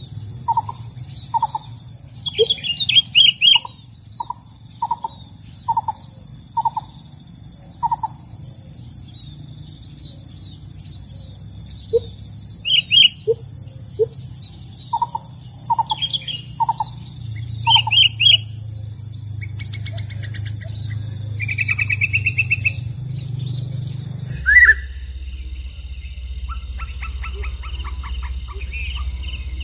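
Birds chirping and calling in short repeated notes, among them sooty-headed bulbul calls used as a lure to draw wild bulbuls in, over a steady high-pitched hum. The background sound changes abruptly about 24 seconds in.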